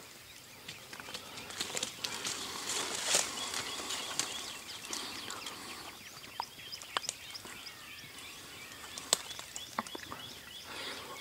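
Small birds chirping and calling, with scattered sharp clicks and light rustling over a faint outdoor background.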